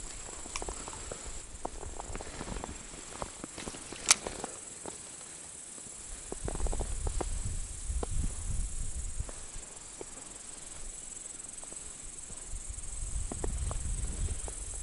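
Baitcasting reel and rod being worked on a cast and retrieve: small clicks and knocks of the reel and handling, with a sharp click about four seconds in. Low rumbling handling noise comes and goes while the reel is cranked.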